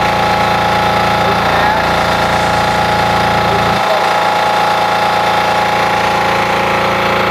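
Small single-cylinder diesel engine of a truck-bed spray rig, 4.7 hp and driving a transfer pump, running steadily with a knocking beat. About four seconds in, its deepest part drops away abruptly while the engine keeps running.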